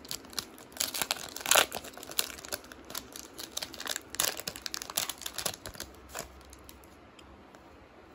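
A hockey card pack's wrapper being torn open by hand: irregular crinkling and tearing, loudest about one and a half seconds in, dying away about six seconds in as the cards come out.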